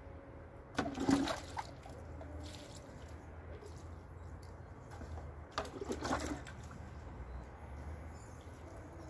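Water pouring from a watering can onto garden soil and seedlings, in two short splashes about five seconds apart.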